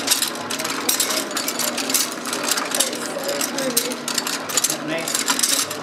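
Kimber Kable three-wire braiding machine running, its wire spool carriers circling with a fast, steady mechanical rattle of gears and moving parts.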